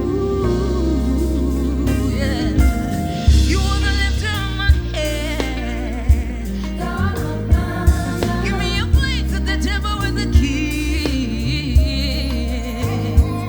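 Gospel song: a solo voice singing with vibrato over bass and drum hits.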